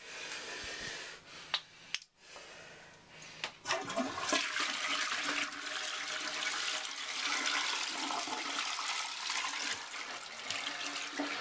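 Toilet flushing: after a couple of sharp clicks, water rushes and swirls down the bowl, starting about three and a half seconds in and running on steadily.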